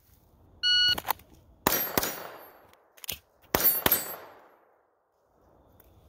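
A short electronic beep, then a string of handgun shots, several of them in quick pairs, each followed by a long fading echo.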